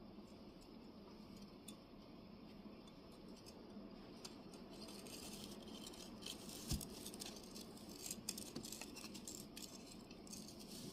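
Clay tablet-weaving cards clicking and rattling against one another as the pack is worked, faint at first and clattering more densely from about halfway, with a single low thump a little after the middle.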